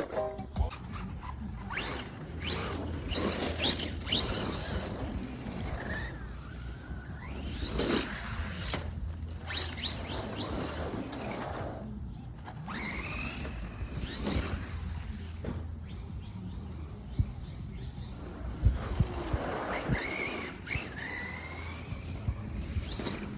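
Birds calling over and over with short squeaky calls that rise and fall in pitch, over a steady low rumble.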